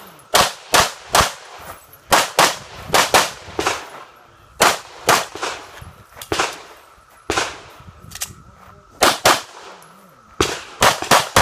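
Pistol shots fired in quick pairs and short strings of three or four, with gaps of up to about a second and a half as the shooter moves between shooting positions.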